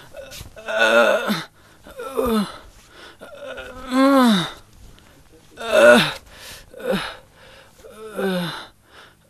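A man moaning and crying out in pain from a bleeding leg wound as it is tended. There are about six drawn-out cries, each rising and then falling in pitch, with short pauses between.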